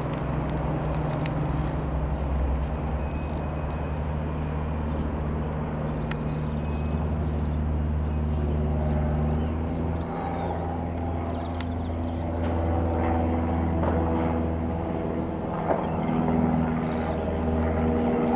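Cessna F172N Skyhawk's four-cylinder piston engine and propeller droning steadily in flight; about halfway through, the drone gains higher overtones and grows a little louder.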